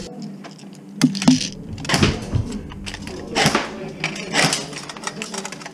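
Sharp clicks and knocks of an airsoft rifle being handled on a padded shooting counter, its magazine pulled out and set down, with low voices around.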